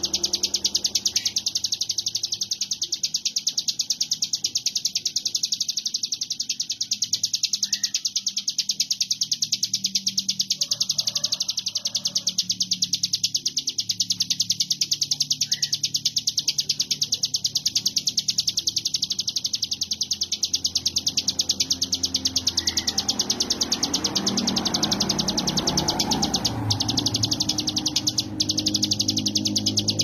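A ciblek gunung (a prinia) singing a fast, unbroken, high buzzing trill with no pauses. This is the non-stop 'konslet' song style prized by songbird keepers.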